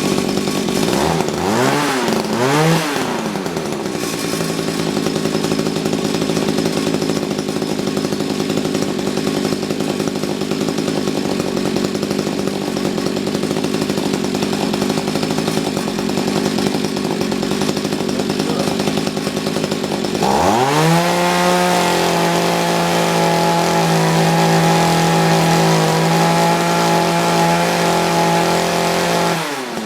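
Mantis tiller's small two-stroke engine running on a newly fitted carburetor being tuned: idling, with two quick blips of the throttle about two seconds in. About two-thirds of the way through it revs up to a steady high speed, holds there, and drops back near the end.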